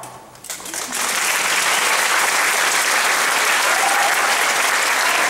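Audience applauding: the clapping starts about half a second in and holds steady.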